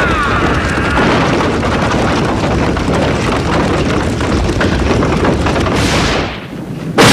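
Animated action sound effects: a continuous loud noisy din of horsemen charging with a log battering ram. Near the end a falling whoosh, a short lull, then a sudden loud crash as the wooden ram strikes the studded gate.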